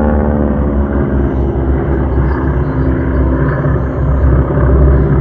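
Radial engines of North American T-6 Texan aerobatic planes droning past overhead in formation, a steady low rumble that grows a little louder near the end.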